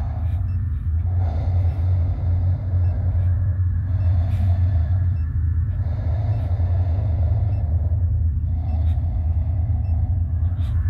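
Horror soundtrack drone: a steady deep rumble, with a hazier mid-pitched swell pulsing about every two seconds and faint high pings above it.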